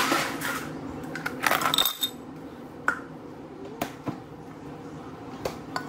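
Scattered light clicks and clinks of small hard objects being handled, with two short rustling rushes in the first two seconds.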